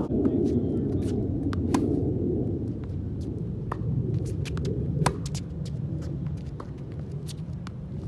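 Tennis rally on a hard court: sharp pops of balls struck by rackets and bouncing, coming irregularly, with the loudest hit about five seconds in. A steady low rumble runs underneath.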